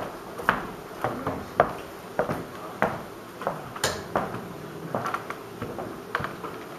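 Sharp, irregular clicks and knocks, roughly two a second: steel-tipped darts thudding into a bristle dartboard, mixed with other small knocks in the room.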